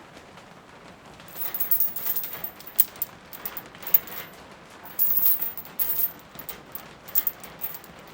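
Steady rain with a faint hiss, joined about a second in by irregular bursts of close crackling and spattering noise.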